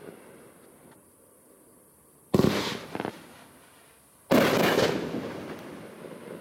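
500-gram Razzle Dazzle consumer firework cake firing: two loud aerial bursts about two seconds apart, each a sharp bang that fades over about a second, with a smaller pop between them.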